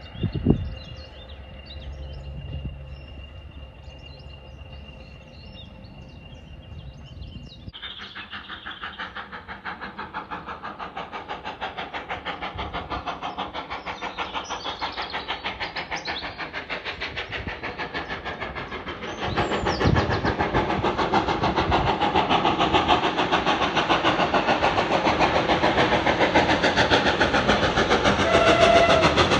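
A steam locomotive working a train toward the listener: fast, even exhaust beats that grow steadily louder, with a further jump in loudness about two-thirds of the way through. The first few seconds are quieter, with one sharp knock near the start.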